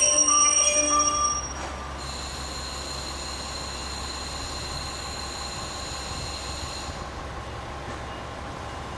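A chime-like melody ends about a second and a half in. After it, the stationary KiHa 47 diesel railcar idles with a low steady engine rumble, and a steady high-pitched whine sounds from about two seconds in until about seven.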